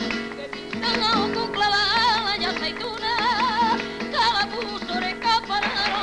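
A woman singing a flamenco-style song, her held notes wavering with a wide vibrato, over strummed guitar accompaniment.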